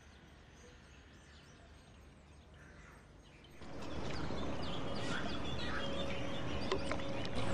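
Outdoor ambience of birds chirping over a steady background hush, faint at first and then coming in much louder about three and a half seconds in.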